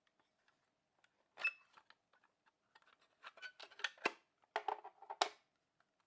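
A quick, irregular run of small mechanical clicks and clatters, strongest in the middle and latter half, over a faint steady hum.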